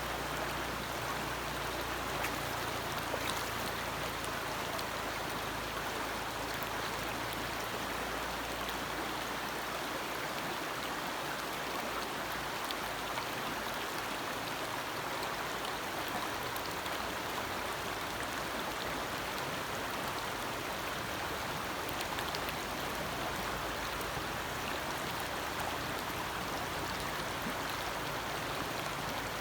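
Forest stream flowing: a steady, even rush of water over rocks, with a low rumble in the first few seconds that fades away.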